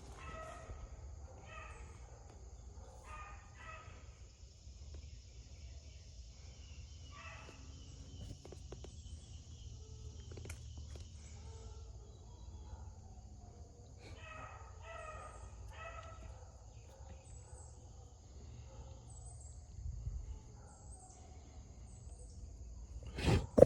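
Beagle barking in the distance, a few short pitched barks at a time, in two runs: near the start and again about two-thirds of the way through. Hounds bark like this while trailing a rabbit. A steady high insect-like hiss runs underneath, and a sharp thump comes just before the end.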